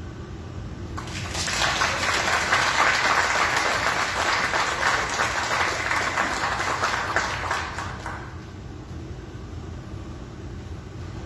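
Congregation applauding after the choir finishes singing, starting about a second in and lasting about seven seconds before dying away to room murmur.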